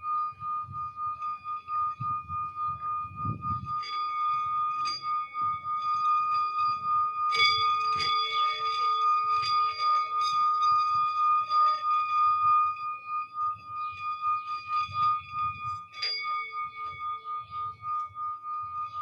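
Singing bowl held ringing in one steady, high tone, with a lower bowl struck twice, each strike adding a deeper pulsing tone that fades out.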